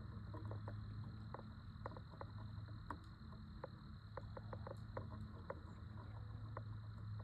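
Scattered light ticks and crackles, irregular and a few per second, over a steady low hum.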